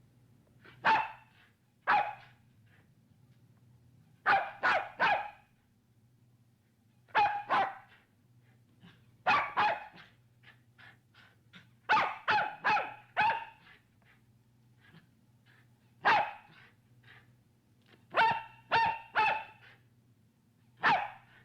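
Small dog barking loudly in single sharp barks and quick runs of two to four, with pauses of a second or two between and a few fainter yaps in the gaps. A faint steady low hum runs underneath.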